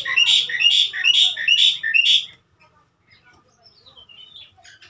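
Javan myna calling a quick run of about six repeated notes, which stops a little over two seconds in.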